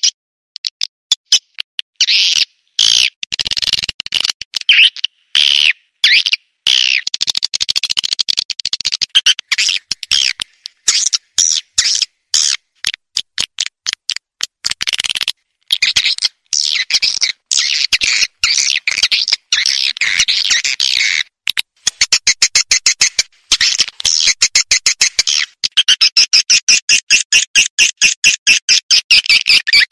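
Swiftlet lure-call recording: high, rapid chirping and chattering of swiftlets in choppy phrases broken by abrupt gaps, turning to fast, evenly spaced chirps near the end. It is a calling sound played to draw swiftlets into a swiftlet house.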